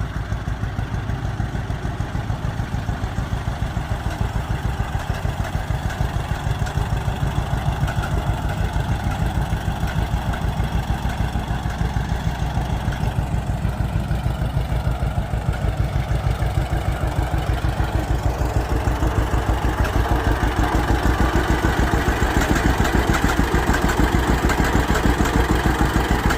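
1948 John Deere Model A's two-cylinder engine running at low speed with its steady popping exhaust beat, the classic John Deere "pop". It grows louder over the second half.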